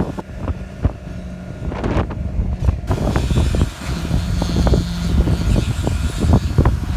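Wind buffeting the microphone in heavy gusts, over the steady low hum of a concrete pump that drops out briefly about three seconds in and fades again near the end.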